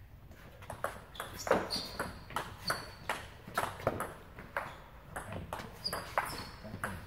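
Table tennis rally: the ball clicking back and forth off the paddles and the table, about three sharp knocks a second, starting about a second in.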